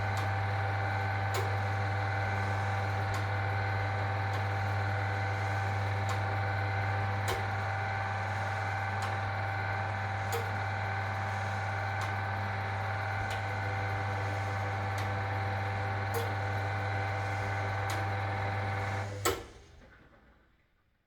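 A 1961 AEG Lavamat Noris washing machine runs with a steady hum and a faint tick about every second and a half. About 19 seconds in, a loud click switches it off and the sound dies away within a second or two.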